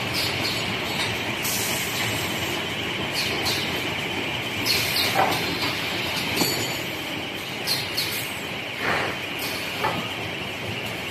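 High-speed sheet-fed laminating machine running: a steady mechanical clatter and hiss, with short squeaks and clicks every second or so.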